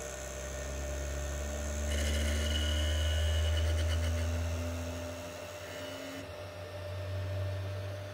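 Anycubic Kobra 3's stepper motors buzzing as the printer shakes its toolhead and bed for its vibration compensation (resonance) test, the tone stepping up in pitch in stages. The buzz is loudest from about two seconds in and eases off after the middle, over a steady hum.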